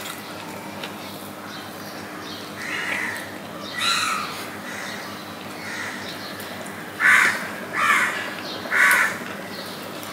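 A crow cawing: a few faint caws about three and four seconds in, then three loud caws in a row about seven seconds in, roughly a second apart.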